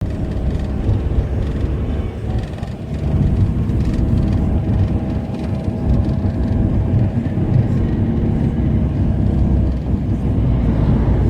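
Vehicle running: a loud, steady low rumble with a faint steady hum above it.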